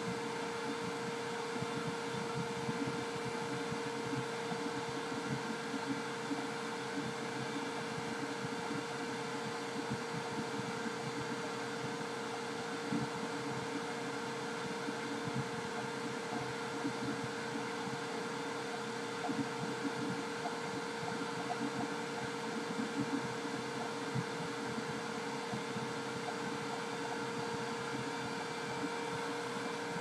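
Electric appliance motor running steadily: an even rushing drone with a constant mid-pitched hum and some uneven low rumbling underneath.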